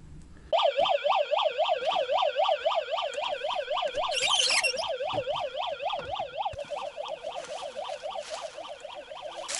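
Electronic siren of a Kilnex Volt flashlight's emergency-signal mode, switched on about half a second in and wailing in a fast up-and-down warble, roughly four sweeps a second.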